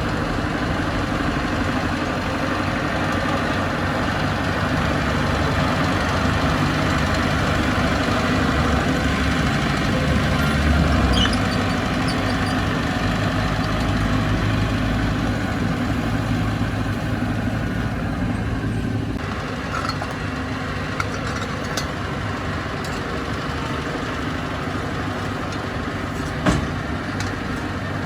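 Bulldozer's diesel engine running steadily with a deep rumble, a little louder for the first two-thirds, then dropping slightly in level. A few sharp knocks near the end, one of them the loudest sound in the stretch.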